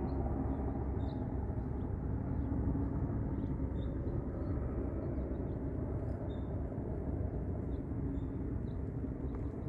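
Outdoor park ambience: a steady low rumble with faint, short, high chirps scattered through it.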